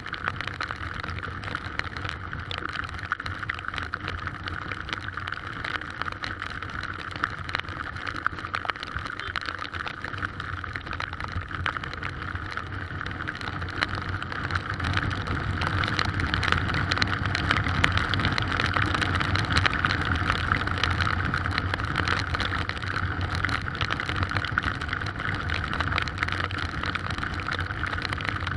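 Heavy rain and strong wind: a steady rushing noise full of dense rain patter, swelling louder about halfway through.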